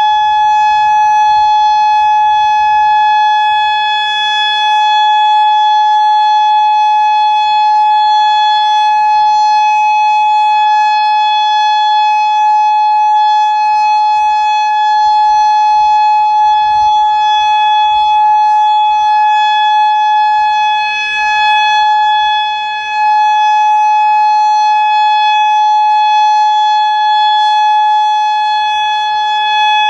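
Federal Signal Modulator 4016 outdoor warning siren sounding the alert signal: a loud, steady single tone held without rising or falling, dipping briefly in loudness once near the end.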